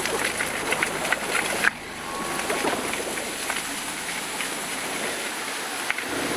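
Vehicle noise recorded while driving, played back sped up: a dense steady hiss with scattered rattling clicks. It drops abruptly to a quieter, steadier noise a little under two seconds in.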